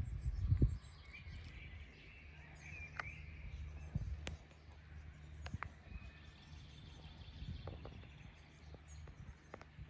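Outdoor ambience: birds chirping faintly over a steady low rumble, with a loud low bump about half a second in and a few scattered clicks.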